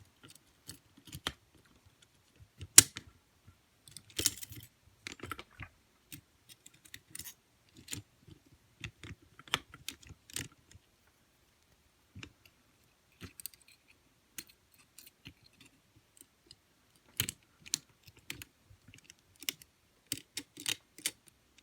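Light, irregular metal clicks and scrapes of a wire pick and tension tool working in the keyway of a Corbin SV59 four-lever padlock, with one sharper click about three seconds in.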